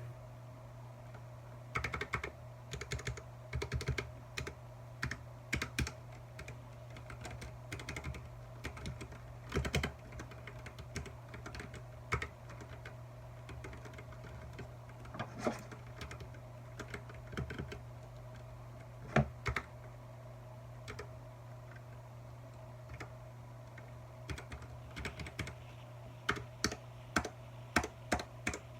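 Keys of a Royal Kludge RK61 mechanical keyboard being typed on: irregular keystroke clicks, some in quick runs and some single, with short pauses between. A steady low hum runs underneath.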